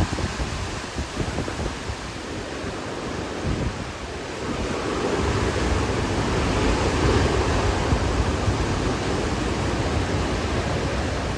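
Hurricane Ian's wind blowing hard, a dense rushing noise with wind buffeting the microphone, growing louder about four seconds in.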